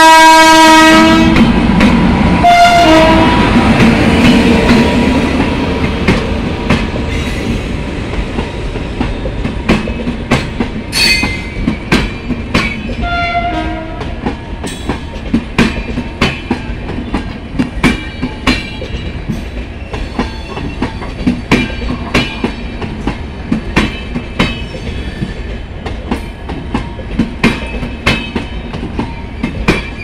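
Passing Indian Railways electric locomotive (WAP-7) and passenger train: the horn ends a long blast in the first second, with short toots a few seconds in and again near the middle. Then comes a steady rumble of the coaches rolling past, with the wheels' regular clickety-clack over rail joints, getting quieter over the first half as the locomotive moves away.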